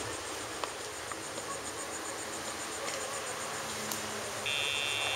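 Insects chirping in a steady, rapid high pulse, with a single electronic beep of two steady tones starting near the end and lasting about a second.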